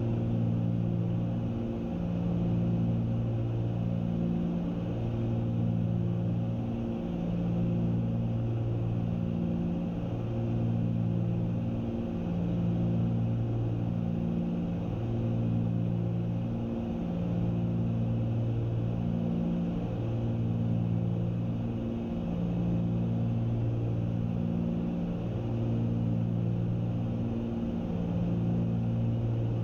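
Cessna 310 twin piston engines and propellers droning steadily in cruise, heard in the cabin. The drone swells and fades in a slow, even throb about every two and a half to three seconds, the beat of two propellers turning at slightly different speeds.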